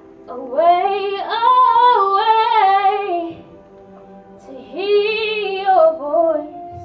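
A woman singing two long phrases of a worship song over steady, sustained accompaniment chords.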